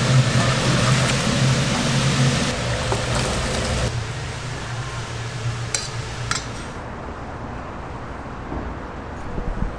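Restaurant kitchen noise, a steady hiss over a low hum, gives way about four seconds in to quieter street ambience with distant traffic and a couple of light clicks.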